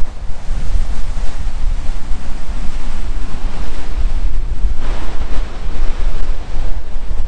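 Storm surf crashing and washing up a shingle beach, with strong wind buffeting the microphone as a constant low rumble. A wave breaks louder about five seconds in.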